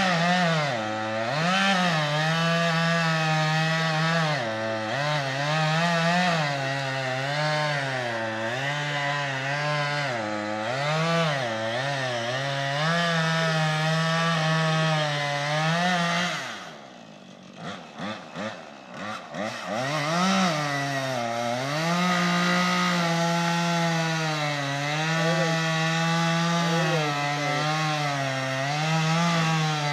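Husqvarna two-stroke chainsaw at full throttle cutting into an oak trunk, its engine pitch sagging and recovering over and over as the chain, which the owner calls the dullest ever, bites slowly. About halfway through it drops to idle for a few seconds with a few short blips of throttle, then goes back to full speed in the cut.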